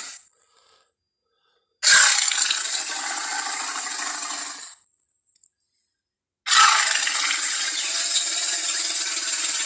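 Two film-style Tyrannosaurus rex roar sound effects, each starting suddenly and lasting about three seconds: the first about two seconds in, the second from about six and a half seconds in, with silence between.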